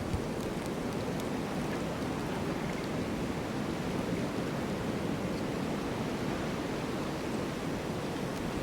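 Snowstorm wind blowing in a steady, even rush with no gusts or breaks.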